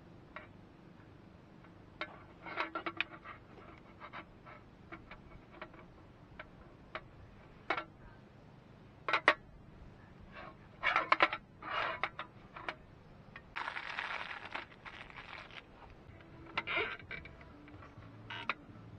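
Clicks, taps and scrapes of small metal stove parts being handled and fitted together on a slatted metal camp table while a portable hose-fed gas camping stove is assembled. The taps come irregularly, bunched in a few quick clusters, with a rustling stretch of about two seconds a little past the middle.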